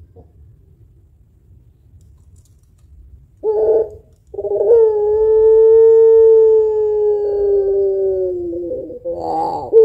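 Puter pelung dove cooing: a short note about three and a half seconds in, then one long drawn-out coo of about four and a half seconds that sinks slowly in pitch, and another short note near the end.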